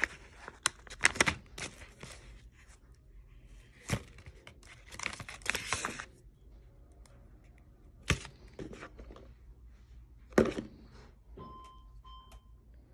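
Plastic snack wrappers and foil being handled and crinkled, with scattered sharp clicks and knocks. Near the end come two faint short beeps.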